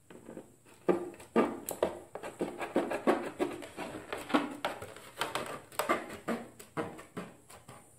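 Tin snips cutting along the edge of a thin ABS plastic armor piece, trimming the return edge. The cuts come as a run of sharp, irregular snips and crunches, about two a second.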